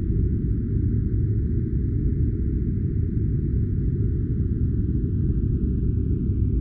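Steady, deep white-noise track for sleep or study: an even, unbroken low rush with a faint hiss above it.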